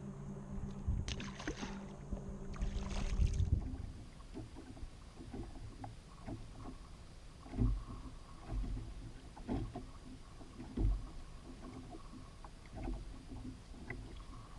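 Water lapping and slapping against a kayak's hull, with irregular small knocks about once a second and a few louder ones. For the first three and a half seconds a steady low hum with wind noise runs under it, then stops.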